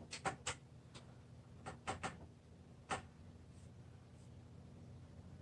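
Paintbrush dabbing and tapping on paper and palette: a few light taps in quick clusters in the first three seconds, over a faint low hum.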